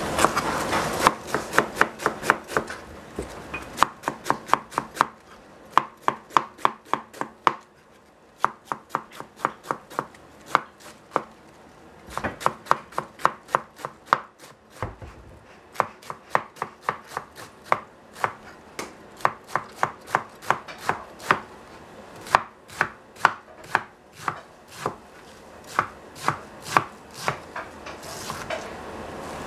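Chef's knife shredding green cabbage on a plastic cutting board: quick knocks of the blade on the board, about four a second, in runs broken by short pauses.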